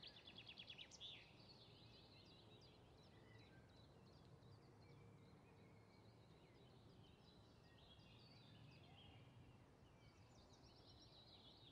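Faint songbirds singing: a rapid high trill in the first second, scattered short chirps, and another trill near the end, over a quiet steady background hiss.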